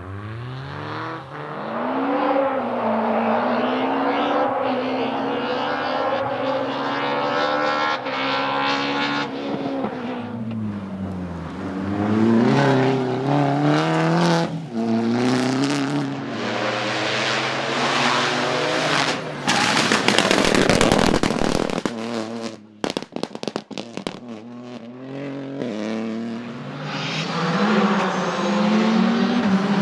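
Rally cars driven flat out, engines revving high and dropping back repeatedly through gear changes and corners. A loud rushing noise comes about twenty seconds in, followed by a few choppy seconds.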